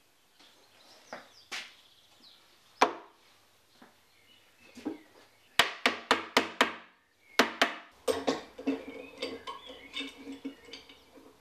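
Woodworking handling sounds: boards being set on a wooden frame and metal F-clamps being fitted and tightened, giving scattered wooden knocks and metallic clicks and clinks. About halfway through comes a quick run of about six sharp clicks, and the clicking gets busier toward the end as the clamps go on.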